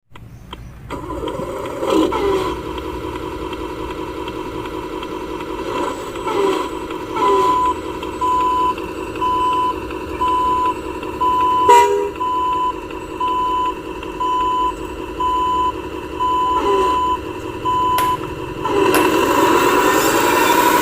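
RC Hino 500 dump truck with a steady engine hum and a reversing beeper sounding about once every second for some ten seconds, with a few short clicks and brief gliding sounds between. Near the end the engine sound grows louder.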